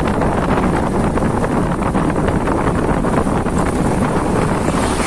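Wind rushing over the microphone of a moving motorcycle, with the motorcycle's engine running steadily underneath.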